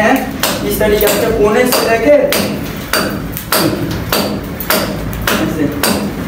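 Repeated sharp knocks of a metal hand tool striking a concrete beam, about two a second, each with a short metallic ring. This is hacking the beam's smooth face so the plaster will grip.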